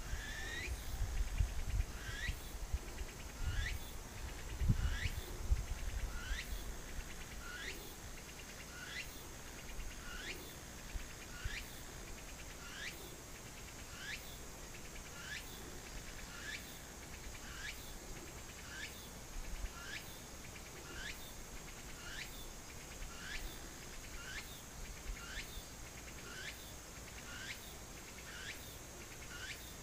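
Autumn night insects singing: a short chirp that slides downward in pitch, repeated a little more than once a second, over a steady high-pitched insect trill. Some low rumbling sounds in the first few seconds.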